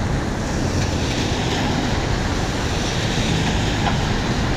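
Heavy rain falling steadily on a city street, a dense even hiss with a low hum of traffic underneath.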